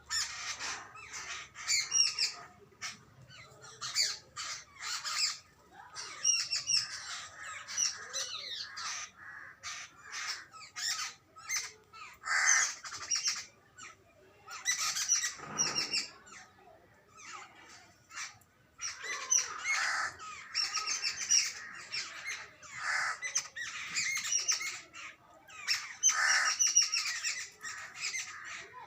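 Jungle babblers calling: repeated harsh, squeaky chattering calls in bursts, coming again every second or two with short gaps.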